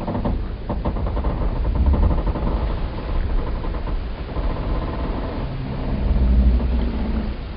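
Wooden ship and pier timbers creaking and groaning: a grating creak for the first half, then a lower, drawn-out groan, over a deep rumble that swells twice.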